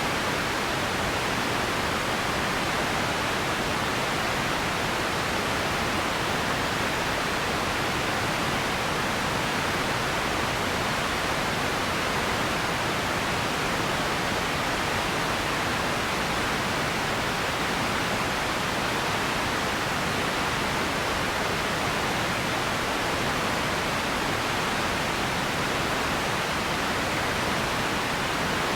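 Radio static: a steady, even hiss of noise that does not change.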